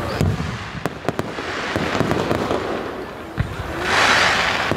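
Fireworks display: aerial shells launching and going off with sharp cracks and bangs, then a louder rushing hiss about four seconds in.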